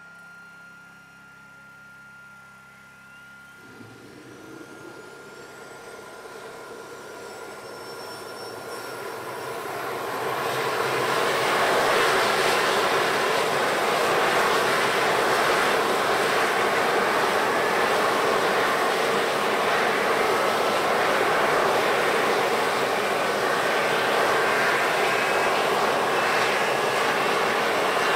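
MiG-23 fighter's jet engine starting up: a whine rising in pitch from about four seconds in, building into loud, steady jet noise by about eleven seconds.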